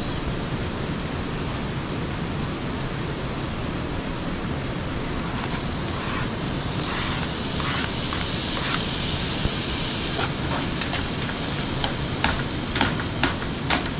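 Sausage and onion frying in a small pan on a camping gas stove; the sizzle grows louder about six or seven seconds in as chopped tomato goes into the pan. A utensil clicks against the pan several times near the end as it is stirred.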